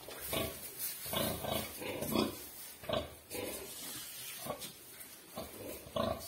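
Pigs grunting, a freshly farrowed sow and her newborn piglets, in short irregular grunts, a little more than one a second.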